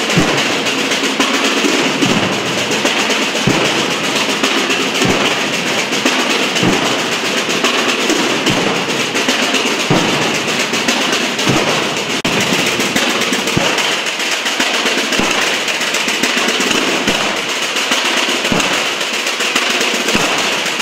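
Massed Bajo Aragón procession drums: many snare-type tambores rolling in a dense, unbroken rattle, with a deep bombo bass-drum stroke about every second and a half.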